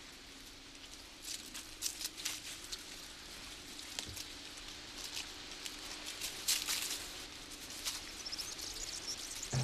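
Iberian wolf cubs lapping water from a shallow stream: soft, irregular splashy clicks over a faint outdoor background.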